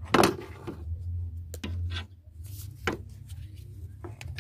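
Scattered sharp clicks and knocks of metal parts and tools being handled while timing chain components are worked into place on the engine, the loudest about a quarter second in, over a steady low hum.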